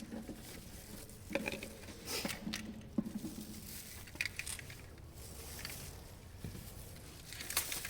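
Scattered light clicks, taps and brief rustles of small objects being handled.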